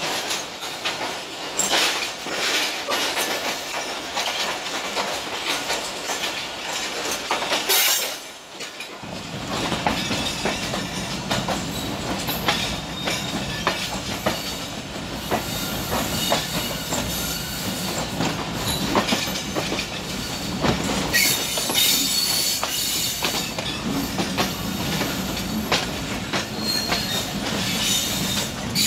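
Pakistan Railways passenger train running through station trackwork, its steel wheels clattering over rail joints and points, heard from an open coach door, with occasional high wheel squeal. The low rumble grows fuller about nine seconds in.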